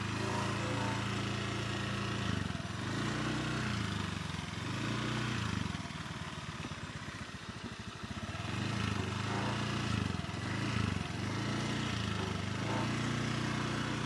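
Small motor scooter engine running while riding, its pitch rising and falling several times as the throttle is opened and eased off.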